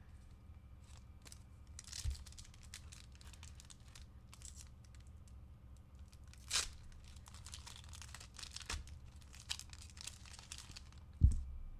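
Paper trading-card pack wrapper being torn open and crinkled by hand, in scattered crackly rustles. A short thump near the end is the loudest sound.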